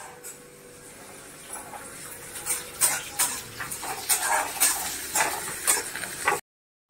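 Long metal stirrer scraping and clinking against a steel kadai while stir-frying, a quick series of sharp scrapes from about halfway through. The sound cuts off abruptly just before the end.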